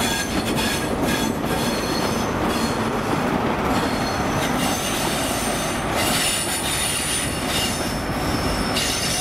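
A Class 43 HST train pulling away on a curve: a steady rumble of wheels and rails, with a high wheel squeal setting in about halfway and growing louder from about six seconds in as the rear power car goes by.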